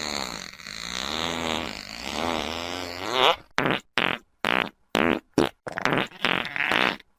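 Fart sound effects from the iFart app. First comes one long, drawn-out fart whose pitch wavers up and down. Then, about three and a half seconds in, a rapid string of short fart bursts follows, about three a second, with brief silences between them.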